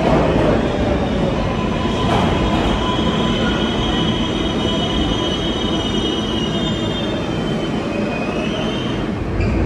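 Subway train running, a steady rumble with several high-pitched squeals from its steel wheels on the rails.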